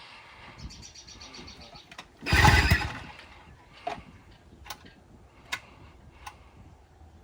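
A 10-horsepower outboard motor being pull-started: one hard yank of the recoil cord a little over two seconds in turns the engine over briefly without it catching. A light ratcheting comes just before the pull, and a few sharp clicks and knocks follow.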